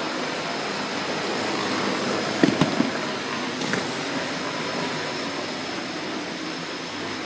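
Electric blender motor running steadily as it blends tomatoes, with a few sharp knocks about two and a half seconds in.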